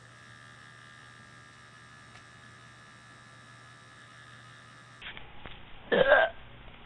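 A steady electrical hum, then an abrupt change to livelier background noise about five seconds in. A second later comes a single short, loud meow from a domestic cat, the loudest sound here.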